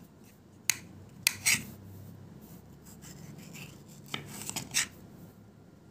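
Kitchen knife slicing a tomato, the blade clicking against the ceramic plate beneath: a few sharp taps in the first second and a half, then a quick cluster of taps about four seconds in.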